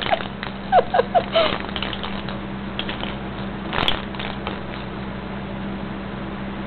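A kitten batting at a toy on a blanket: soft rustling and light taps over a steady low hum, with one sharper tap about four seconds in.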